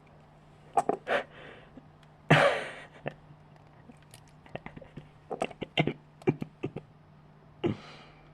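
Sharp clicks, taps and scrapes of a plastic fidget spinner being handled and pried at to work its bearing out, with a louder scrape about two seconds in that fades over half a second and a shorter rasp near the end.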